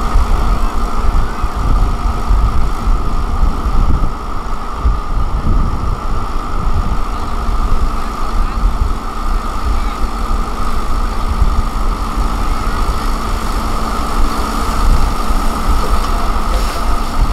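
Crawler excavator's diesel engine running steadily as the machine digs and dumps mud, a low rumble with a steady higher whine above it.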